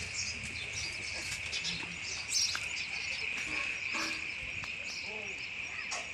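Steady high-pitched insect chorus with scattered short bird chirps over it.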